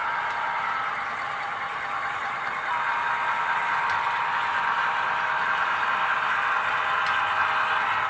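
Model railroad diesel locomotives running along the layout track with a steady running noise that grows louder about three seconds in as the engines draw near.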